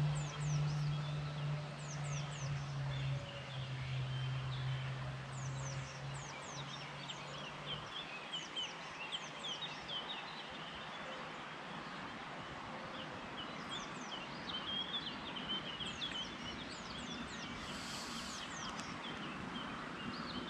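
Songbirds chirping around the pond, many short, quick, falling notes in scattered bursts over a steady outdoor hiss. A low steady hum underneath stops about eight seconds in.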